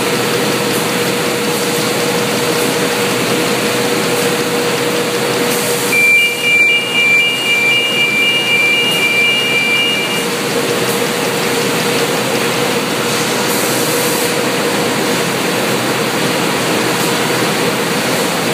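Steady machinery noise of a corrugated-box handling line with roller conveyors, over a constant hum. About six seconds in, a high two-tone warning signal sounds for about four seconds.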